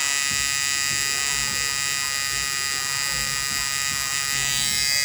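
Tattoo machine with a cartridge needle buzzing steadily as it inks skin, a loud, even, high-pitched hum that does not change.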